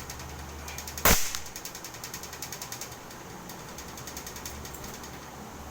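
A single sharp air-pistol shot about a second in, followed by a fast run of faint, evenly spaced clicks lasting about two seconds.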